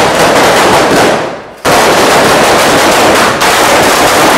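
Firecrackers bursting in rapid, dense volleys of bangs. The first volley fades out about a second and a half in, and a fresh one starts straight after and keeps going loudly.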